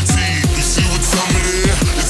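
Background electronic music with heavy bass and a fast, steady beat.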